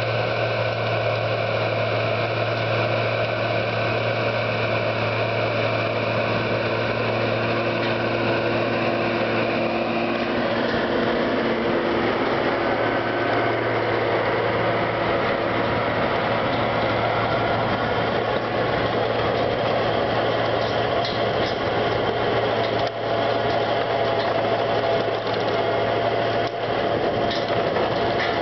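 A New Holland tractor's diesel engine running steadily under load while driving a Maschio DM 4000 rotary power harrow, its rotors churning through the soil. A thin steady whine rises over the noise in the second half.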